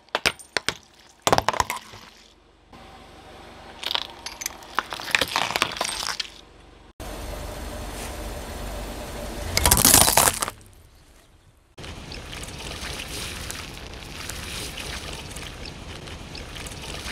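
Brittle objects cracking and crunching as a car tyre rolls over them, in several short takes: sharp cracks near the start, a run of crackling, one loud crunch just past the middle, then steady crackling over a low rumble.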